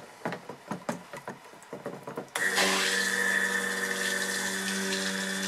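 A few light knocks, then about two seconds in an immersion (stick) blender switches on and runs steadily, blending oils and goat milk lye solution into cold-process soap batter.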